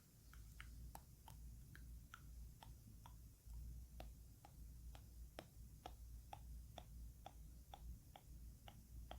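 Water dripping drop by drop, a steady run of faint plinks at about two to three drops a second, each with a short bright ping.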